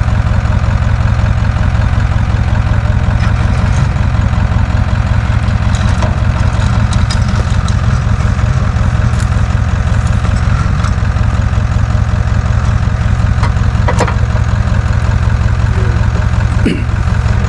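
A vehicle engine idling steadily during a winch recovery, with a few light clicks over it.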